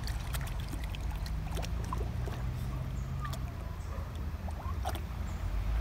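Japanese Chin dog wading in shallow river water, its paws splashing sharply now and then, over a steady low rumble.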